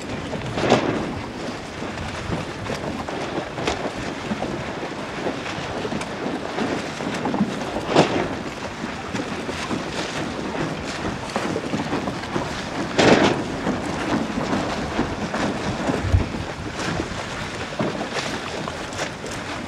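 Wind rushing across the microphone over choppy water: a steady noise broken by several brief, louder surges and one short low thump.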